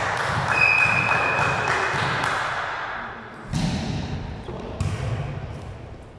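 Volleyball being played in an echoing sports hall. A ball is struck about three and a half seconds in and again near five seconds, over a bed of shoe and player noise. About half a second in there is a high whistle-like tone lasting around a second.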